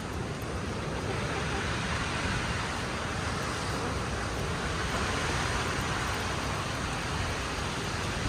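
Strong wind buffeting the microphone: a steady rushing noise with a low rumble, getting a little louder about a second in.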